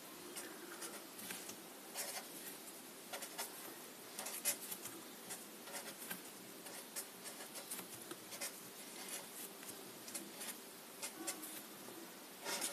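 Black felt-tip marker scratching on paper in many short, quick strokes and dabs, the sound of small numbers and marks being written.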